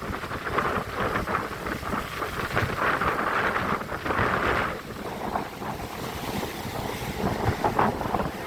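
Storm wind gusting and buffeting the microphone in uneven surges, strongest around three to four seconds in and easing after that.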